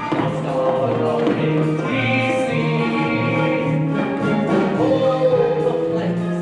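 Stage musical number: the cast singing together over a pit orchestra, with a bass line stepping back and forth between two low notes.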